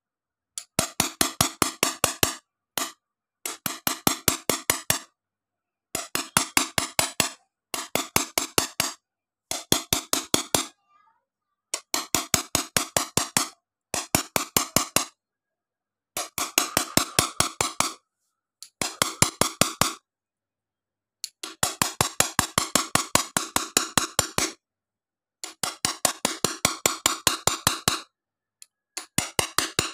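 Small hammer tapping a metal punch against a glass sheet, stippling an engraved design. The taps come in quick runs of about six a second, each run lasting one to three seconds, with short pauses between runs.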